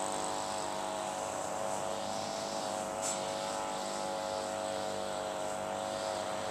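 A distant engine drone, steady, its pitch drifting slightly, over a faint high hiss, with a short high-pitched sound about three seconds in.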